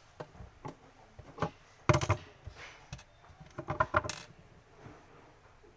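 Hard plastic and metal parts of a glass mop clicking, clinking and knocking as they are handled during a repair, with a sharp knock about two seconds in and a quick run of clinks around four seconds.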